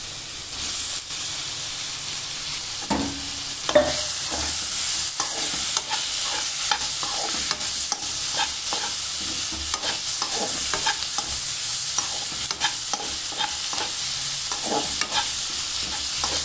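Steel spoon stirring and scraping squid pieces through onion-tomato masala in a non-stick kadai, with frequent clicks against the pan over a steady sizzle as the squid gives off its own water into the hot oil. One louder knock comes a little under four seconds in.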